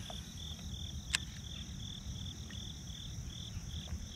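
Crickets chirping in a steady rhythm, about two chirps a second, over a low rumble. One sharp click about a second in.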